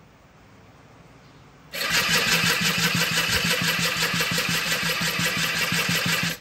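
Electric starter cranking a Polaris Scrambler 50's small two-stroke engine in a steady rhythm, starting about two seconds in and cutting off abruptly after about four and a half seconds. The engine turns over without catching.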